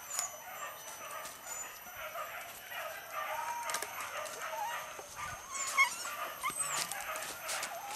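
Hunting dogs yelping and whining in short high calls while chasing wild boar, with snapping and rustling of undergrowth.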